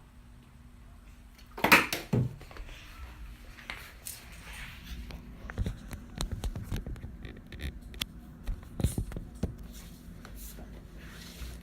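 A sharp knock just under two seconds in, then scattered small clicks and taps of objects being handled.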